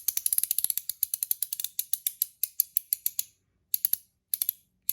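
Double-ratchet fidget coin made of PEI plastic being turned, giving rapid runs of crisp ratchet clicks at about ten a second. The clicks stop briefly about three seconds in, then come back in short spurts.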